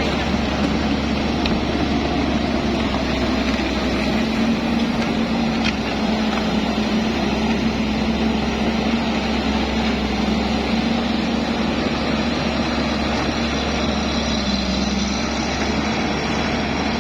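Construction machine's engine running steadily at an even pitch, a continuous hum with no breaks or changes in speed.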